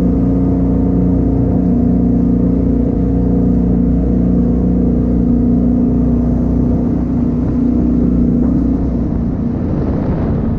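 420 PS jet boat engine running at speed, a loud steady drone. About nine seconds in the engine note fades and a noisy rush is left.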